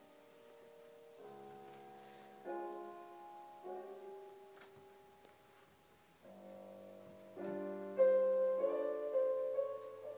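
Slow classical music: piano chords under a sustained wind instrument, the notes changing every second or so and growing louder near the end.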